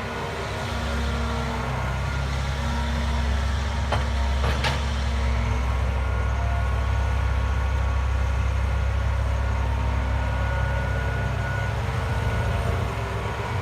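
Hitachi EX120 excavator's diesel engine running steadily under load, with a higher steady hydraulic whine over it; it grows louder about a second in. Two sharp metallic clanks come about four seconds in.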